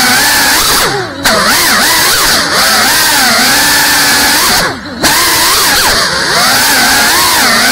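Brushless motors and ducted propellers of a GEPRC Cinelog 35 cinewhoop FPV drone whining, the pitch rising and falling constantly with the throttle. The sound drops away briefly twice, about a second in and again about five seconds in, as the throttle is cut.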